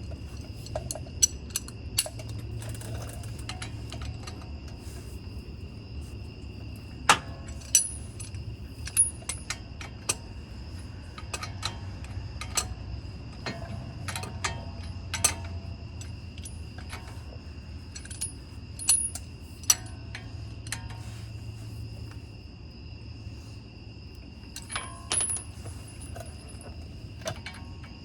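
Scattered sharp metallic clicks and clinks of hand tools and bolts working on a brake caliper bracket, some ringing briefly. Under them runs the steady trill of crickets.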